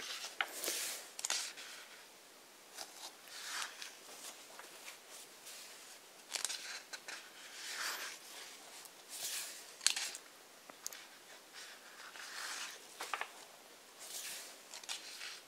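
Pages of a thick hardcover book being turned one after another: about ten short papery swishes and rustles, with a sharper snap of paper near the middle.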